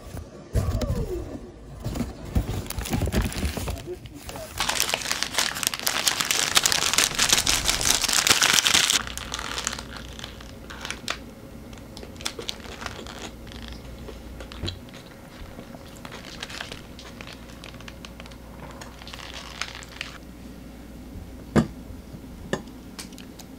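Paper burger wrappers and a paper takeaway bag crinkling and rustling, loudest for several seconds as the burgers are handled and unwrapped, then quieter handling with a couple of sharp clicks near the end.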